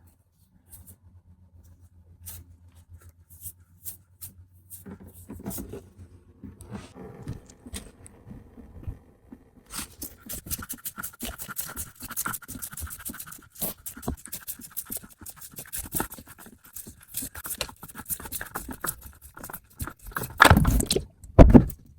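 Spin-on oil filter on a 2.0L turbo engine being unscrewed by hand, with scraping and clicking. From about halfway through, draining engine oil pours and patters into a drain pan. Two loud knocks come near the end.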